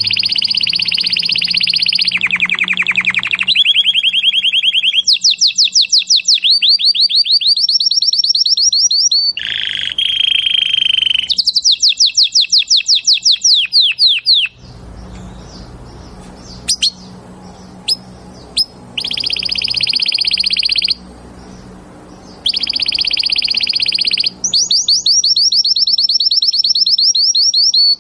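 Male canary singing a loud song of trills: phrases of a few seconds each, made of fast repeated rising notes at about ten a second and steady high rolls. About halfway through comes a quieter break of some four seconds with only a few short chirps, then the trills start again.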